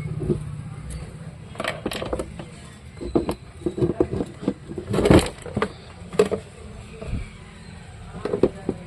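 Irregular clicks and knocks, a few of them sharper, over a low steady hum.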